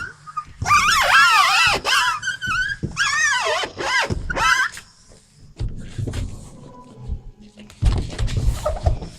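High-pitched wavering squeaks in several bursts over the first few seconds, followed by low thumps and rumbling.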